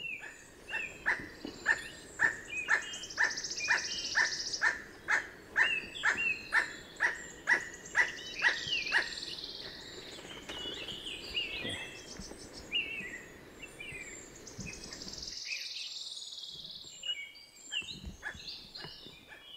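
Emerald toucanet calling: a long, even series of short call notes, about two a second, that ends about nine seconds in. Thin high chirps of other birds run above it and carry on after.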